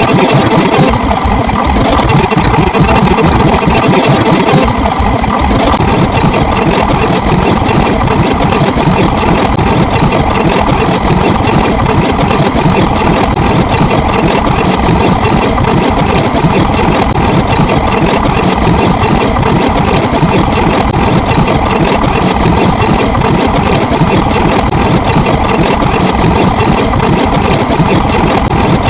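Loud, continuous rumbling, engine-like noise with a steady high-pitched whine, unchanging throughout.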